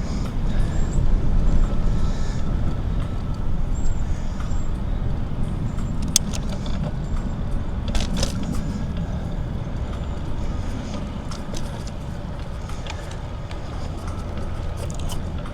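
Steady low wind rumble on a windscreened clip-on mic, with tyre noise from a Trek Dual Sport hybrid bicycle being ridden. A couple of sharp clicks come about six and eight seconds in, and the rumble eases a little toward the end.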